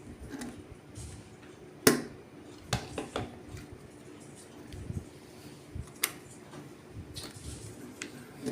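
Scattered clicks and knocks of small plastic and metal parts being handled and fitted while a molded case circuit breaker is put back together, with the sharpest click about two seconds in.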